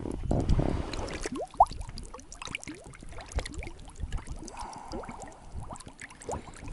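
Plastic bottle being filled under river water, gurgling as air bubbles out in many quick rising blips.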